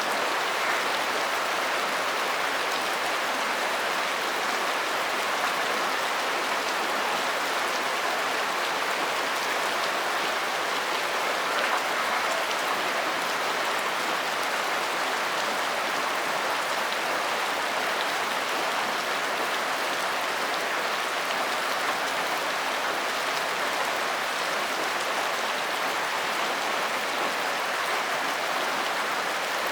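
Steady rain falling, an even, unchanging hiss.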